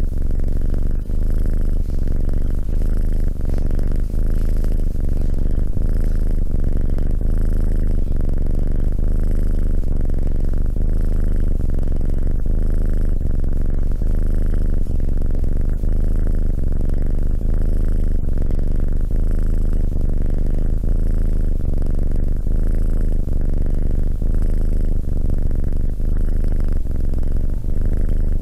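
Tabby kitten purring, close-miked: a steady low purr that swells and eases with each breath in a slow, even rhythm.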